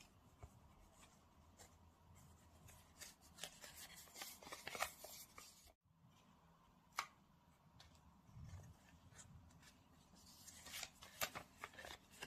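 Smartphone box and packaging being handled: quiet rustling, rubbing and small clicks, busiest in two stretches, one before the middle and one near the end.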